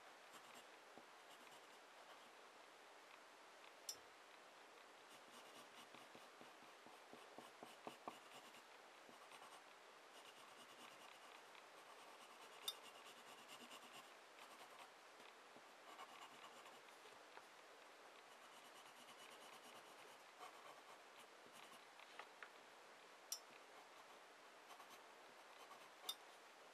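Faint scratching of a sharpened wooden pencil's graphite tip drawing strokes across a sheet of paper, with a handful of sharp ticks scattered through.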